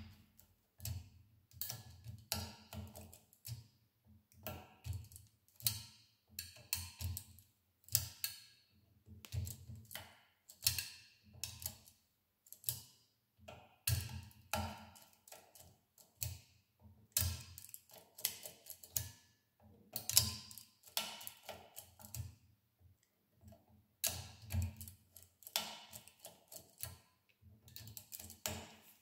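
Small metallic clicks and ticks of a pick tool working inside a car lock cylinder, coming irregularly in loose clusters with a few dull knocks.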